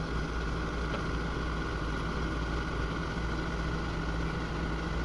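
Heavy machine's diesel engine idling steadily.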